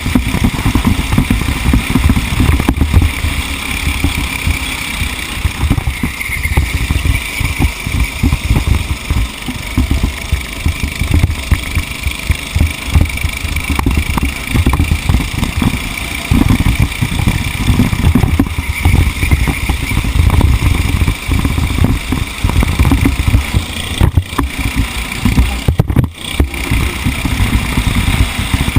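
A motor vehicle's engine running on the move, heard on board, a loud, uneven low rumble with a brief dip in level near the end.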